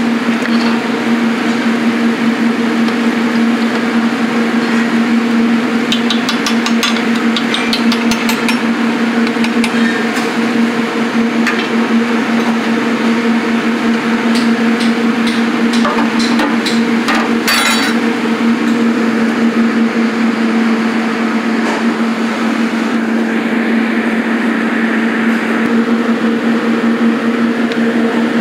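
Steady loud hum with a rushing noise under it, over a large pot of kale soup at the boil. Clusters of sharp knocks come about six seconds in and again around seventeen seconds.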